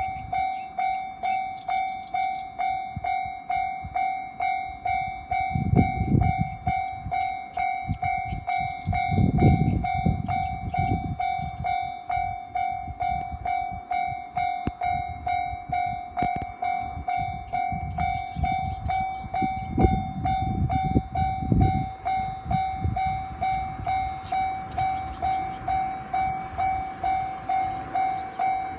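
Japanese railway level-crossing alarm ringing its electronic bell, the same ding repeated evenly and rapidly without a break. Several low rumbles swell and fade beneath it.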